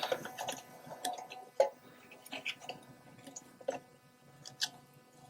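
Light, scattered clicks and taps of a small-engine carburetor and its gasket being handled and test-fitted against the intake manifold.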